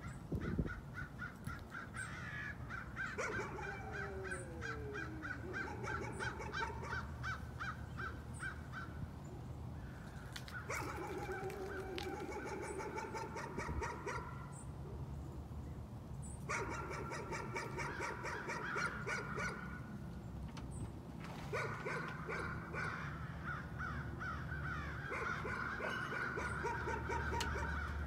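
A dog barking nonstop in long runs of rapid, repeated barks, each run lasting several seconds with short breaks between: persistent nuisance barking.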